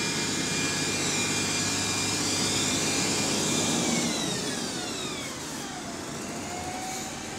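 Double-decker bus running with a steady whine over its engine noise; about four seconds in, the whine glides down in pitch and settles into a lower tone.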